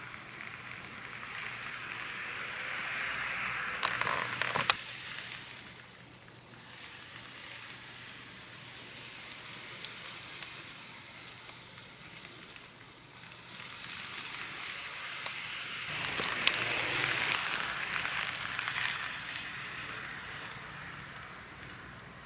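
N gauge model train, a two-car Kintetsu 1252 series, running on the track: a hissing rattle of wheels and motor that swells twice as the train passes close, with a few sharp clicks about four seconds in.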